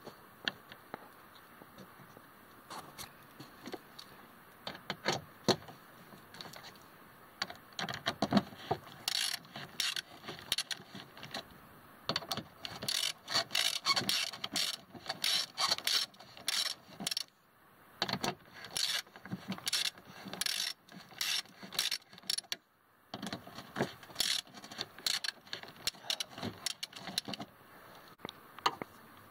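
Socket ratchet wrench clicking in runs of quick clicks as the mounting bolts of a power window motor are turned on the door's window regulator, with brief pauses between runs.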